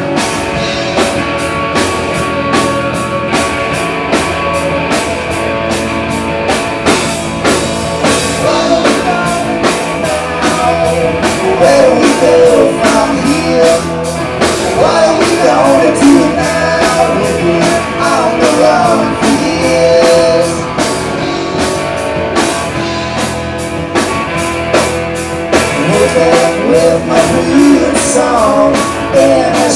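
Punk rock band playing live and loud: drum kit keeping a steady beat under bass and electric guitar, with a voice singing over the band in the later part.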